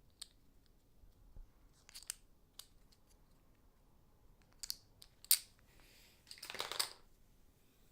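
Poker chips clicking as they are shuffled by hand: scattered sharp clacks, the loudest about five seconds in, then a short dense rattle of chips riffling together near the end.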